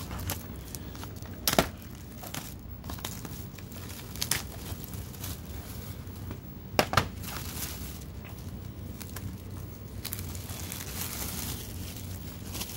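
Cellophane shrink-wrap crinkling and tearing as it is peeled off a sealed CED videodisc, with sharp crackling snaps about a second and a half in and again about seven seconds in. Over the last few seconds the crinkling turns denser and steadier.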